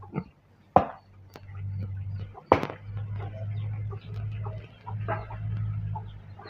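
Chickens clucking, with two sharp knocks about a second in and midway, over a low steady hum.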